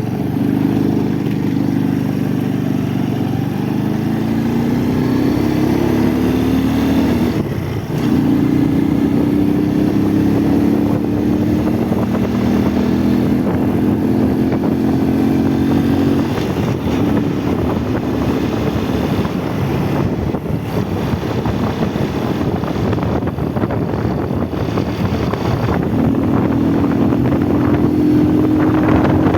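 Motorcycle engine running under way. Its note rises, breaks off briefly about seven seconds in and picks up again lower, holds steady for a while, fades somewhat, then comes back stronger near the end.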